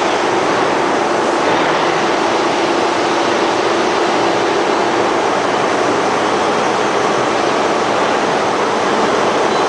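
Steady loud roar of forge-shop machinery with no hammer blows, and a low hum that fades out about halfway through.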